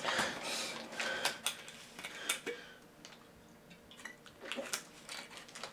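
Brown paper bag crinkling, with a scattering of short sharp clicks, as a bottle wrapped in it is handled and raised to drink from.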